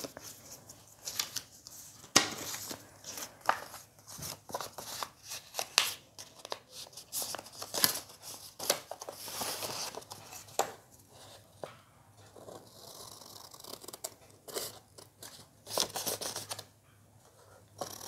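Scissors cutting paper in a run of short, irregular snips, with the paper rustling as it is handled.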